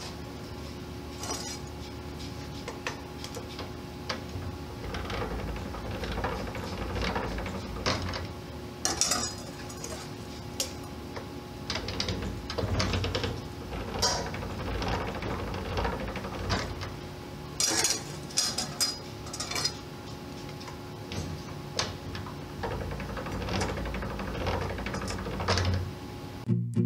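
Irregular metallic clinks, clanks and rattles of sheet metal and tools being handled, over a steady hum.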